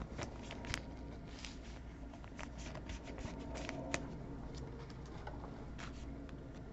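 Trading cards being flipped through by hand: soft, irregular sliding and light clicks of card against card.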